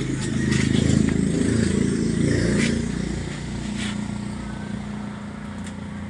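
A small engine running, loudest for the first three seconds and then fading to a low steady hum.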